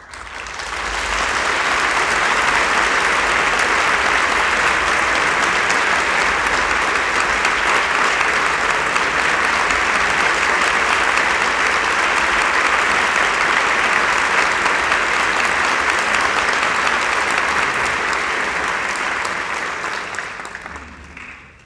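Theatre audience applauding after a song recital: the applause swells within the first couple of seconds, holds steady and dies away near the end.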